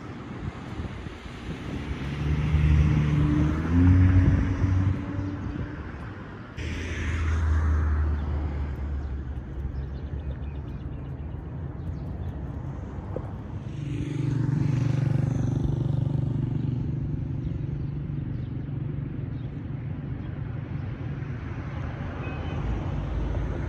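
Street traffic: vehicle engines passing and running over a constant background rumble, with a low engine note rising and falling in pitch around the start. The sound changes abruptly about six and a half seconds in.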